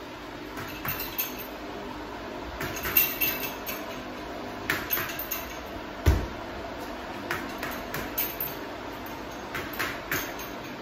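Gloved punches landing on a teardrop-shaped punching bag hung from a chain, in quick groups of two to four hits with a metallic clinking of the chain. The heaviest blow, a low thud, lands about six seconds in.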